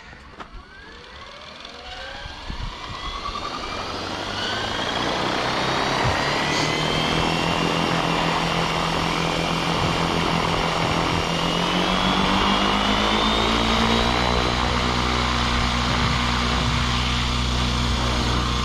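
Align T-Rex 650X electric RC helicopter spooling up: the motor and rotor whine rises steadily in pitch and loudness over about six seconds, then runs steadily at head speed with the rotor blades beating.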